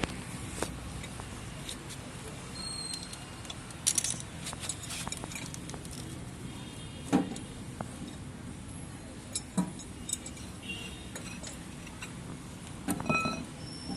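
Scattered clinks and knocks of metal tools and pipe fittings being handled, a few with a brief ringing note, the loudest about four, seven, nine and a half and thirteen seconds in.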